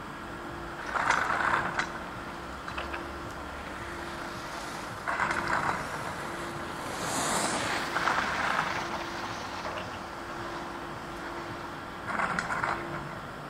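Skis scraping across packed snow in short bursts about every three to four seconds, over a faint steady hum.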